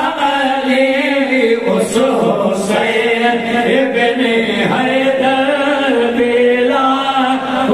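A group of men chanting together in a devotional chant, with no instruments, on long held, wavering notes.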